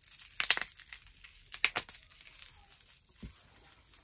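Wrapping crinkling and tearing as a small packaged item is unwrapped by hand. The loudest rustles come about half a second and a second and a half in, with a soft low bump near the end.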